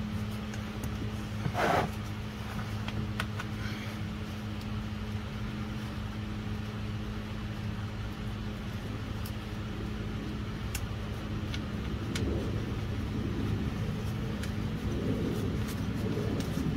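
Steady low mechanical hum, with a brief rustle about two seconds in and a few faint clicks.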